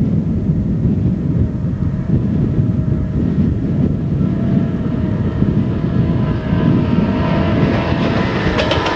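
Approaching Amtrak F40PH diesel-electric locomotives (EMD 645 turbocharged V16 prime movers) working a passenger train. Their engine sound swells from about halfway through, and a clatter of wheels on the rails comes in near the end, over steady wind rumble on the microphone.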